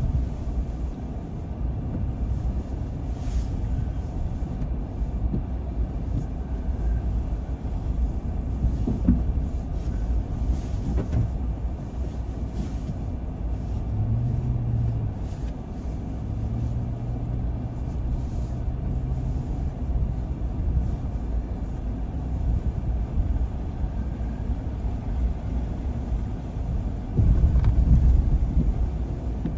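Car driving along a road: a steady low rumble of engine and tyre noise. A low engine hum comes in about halfway and holds for several seconds, and the rumble grows louder near the end.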